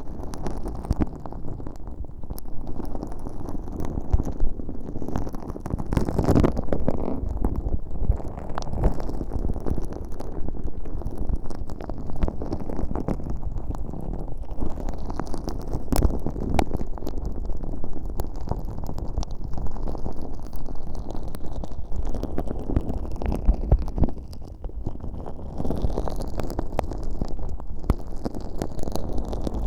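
Very sticky, fairly firm slime packed with fine holographic glitter being worked with earpicks in both ears of an uncovered microphone: a continuous stream of low, wet squelching and crackling with frequent sharp clicks.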